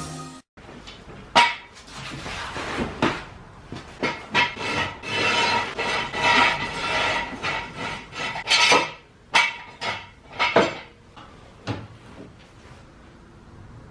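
Metal tools and equipment clanking, knocking and rattling irregularly, in short clusters, with the loudest knocks in the middle of the sounds and a quieter stretch near the end.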